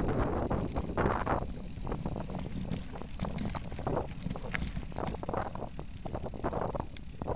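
Mountain bike rolling over a gravel dirt track: tyre noise with scattered small clicks and rattles from the bike, and wind buffeting the camera microphone in gusts, strongest about a second in.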